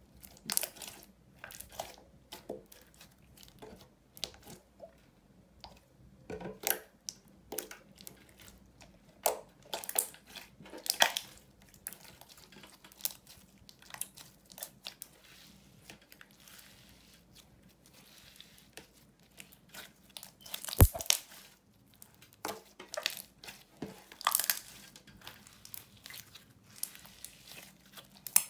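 Red slime being kneaded, folded and stretched by hand: irregular crackling and squishing, with one sharp pop about two-thirds of the way through.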